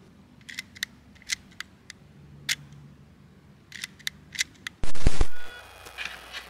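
Leica M3 film camera clicking as it is handled: about a dozen short, sharp mechanical clicks, irregularly spaced, from its controls. About five seconds in comes a much louder burst of noise lasting about half a second, which fades out.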